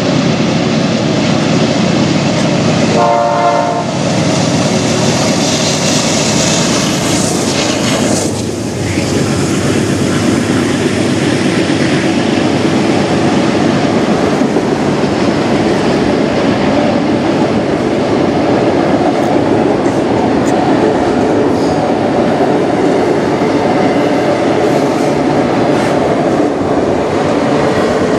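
Freight train passing close by: a short horn blast about three seconds in, then the steady clatter of the wheels as a long line of autorack cars rolls past on the rails.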